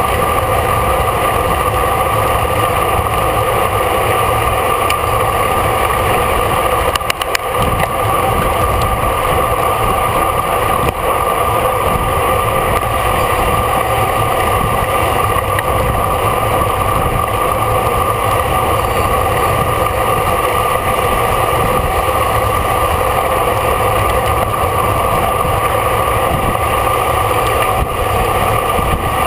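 Steady rush of wind and road noise on a camera carried by a bicycle racing at speed, with a constant low rumble and a steady hum.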